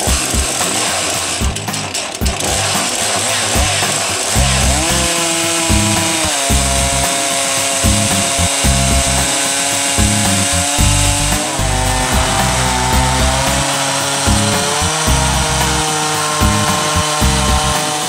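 Stihl MS391 two-stroke chainsaw running under full load as it rips lengthwise along a log on a Logosol Farmer's Sawmill chainsaw mill, its pitch shifting a few times during the cut. Background music plays along with it.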